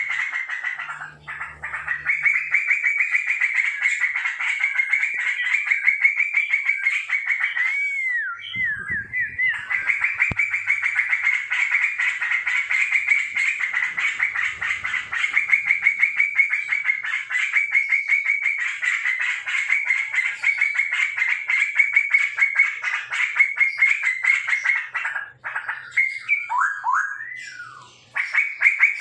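Straw-headed bulbuls (cucak rowo) calling: a continuous fast rattling chatter, broken by short whistled glides about eight seconds in and again near the end.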